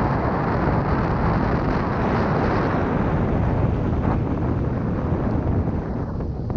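Steady wind rushing over the microphone of a camera riding along on a moving bicycle, a dense rumbling noise that eases a little near the end.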